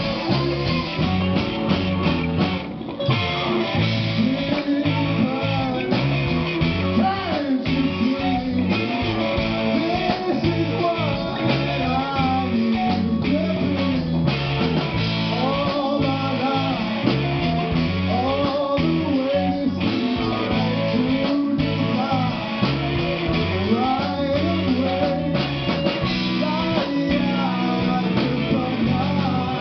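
Rock band playing live, with electric guitar to the fore over bass and drums.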